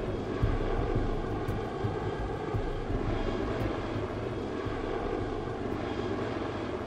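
Sikorsky CH-53K King Stallion heavy-lift helicopter in flight, its rotors and turbine engines running steadily.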